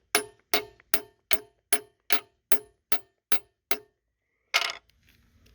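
Hammer tapping a 10 mm dowel pin into a drilled alignment hole in metal: about ten evenly paced, ringing metal strikes, then a short pause and one harder blow near the end.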